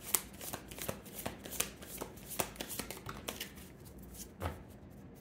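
A deck of oracle cards being shuffled by hand, a quick run of papery card clicks that thins out after about three seconds. A soft thump comes about four and a half seconds in, as a card comes out of the deck.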